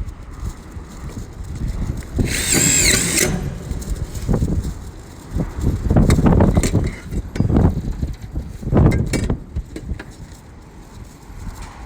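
A power drill runs for about a second with a high whine, starting about two seconds in, while fastening a rib stiffener to the bin roof. Low knocks and rumbling of handling come before and after it.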